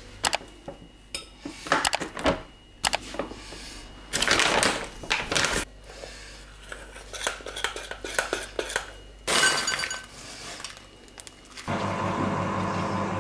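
Dishes and cutlery clattering: scattered clicks, knocks and clinks with a couple of longer clattering stretches. A steady hum starts near the end.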